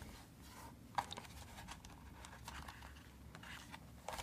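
Faint handling sounds of a watch box being opened by hand: a sharp click about a second in, then soft rubbing and small ticks as the lid comes away from the insert, with another small click near the end.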